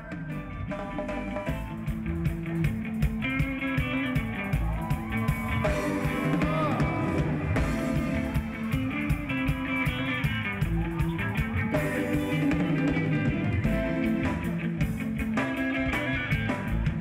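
Reggae band music with electric guitar prominent over bass and drums.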